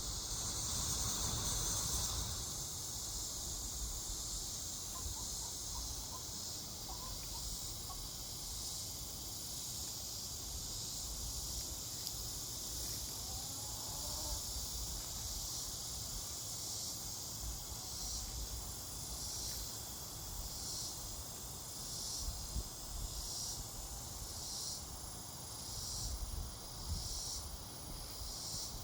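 Steady high-pitched chorus of crickets or similar insects, with a regular chirp repeating about every second and a quarter from the middle onward.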